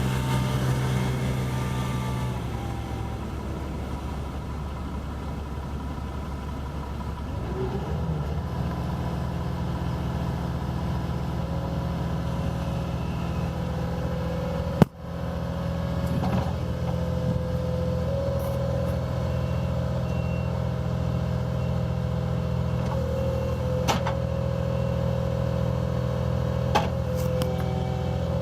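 Cat 236D skid steer loader's four-cylinder diesel engine running steadily, its note shifting slightly a couple of seconds in. There is one sharp click about halfway through.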